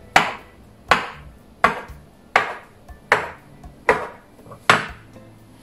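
Steel bench scraper chopping a rope of potato gnocchi dough into small pieces on a wooden pastry board: seven sharp knocks, about one every three-quarters of a second, each with a brief ring.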